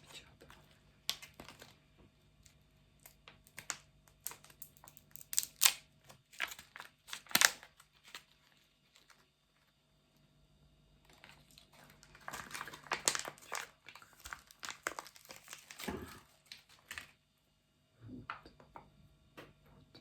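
ASMR trigger sounds: irregular crinkly, scratchy handling strokes, with a few louder ones and a dense run of strokes partway through, separated by quiet pauses.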